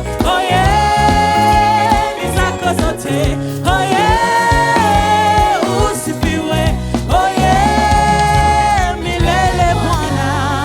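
Gospel worship song: voices sing three long held notes, each about a second and a half, over a band with bass and drums.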